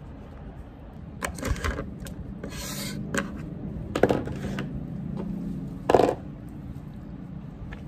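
Books and stationery handled on a desk: books slid and shuffled, a brief rustle, and a few light knocks as things are picked up and set down, the sharpest about six seconds in.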